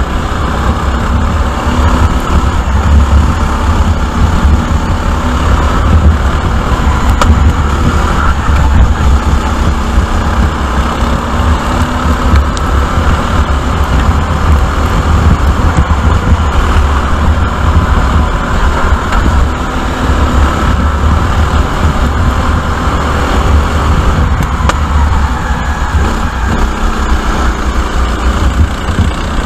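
Sodi RT8 rental kart's engine running hard at racing speed, heard from a camera mounted on the kart, its pitch rising and falling as the kart brakes and accelerates through the corners, over a heavy low rumble.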